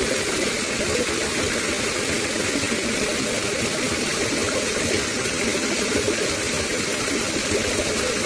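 Shallow stream water running steadily, an even, unbroken rush with no distinct splashes.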